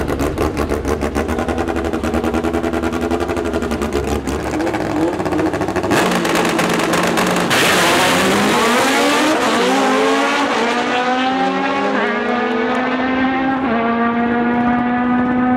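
A naturally aspirated Honda K24 four-cylinder race engine in a drag-racing Civic, held at steady high revs on the start line with a rapid popping. It launches hard about six seconds in, and the revs climb steeply in several steps through the gears. The sound gets duller as the car pulls away down the track.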